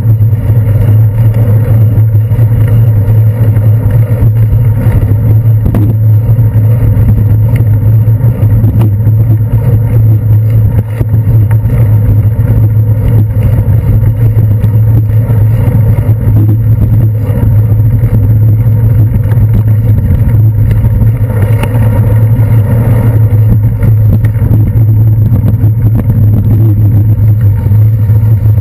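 Loud, steady low rumble of a bicycle riding over wet city pavement, heard through a handlebar-mounted GoPro Hero 2 in its waterproof housing, with traffic noise mixed in. A brief swell of brighter noise comes about three quarters of the way through.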